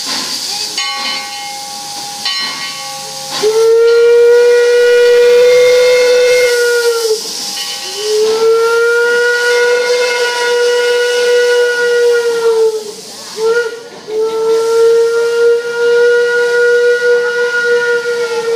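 Steam locomotive whistle blowing three long, steady blasts, each sagging slightly in pitch as it ends, with a short toot between the second and third. Under it, steam hisses steadily as the engine gets its train moving.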